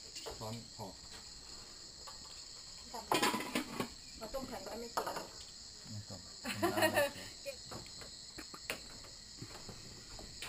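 A steady, high-pitched insect chorus keeps up throughout. It is broken by two short, louder bursts of sound, about three seconds in and again around seven seconds.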